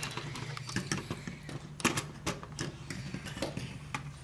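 Plastic LEGO bricks clicking and rattling as an assembled model spaceship is handled and reconfigured: a series of irregular sharp clicks, the loudest a little under two seconds in.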